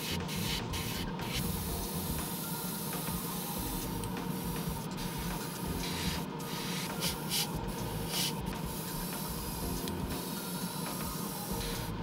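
Airbrush spraying paint onto resin garage kit parts: a steady hiss that cuts out for a moment every second or so as the trigger is eased, with a few louder spurts a little past the middle, over a steady low hum.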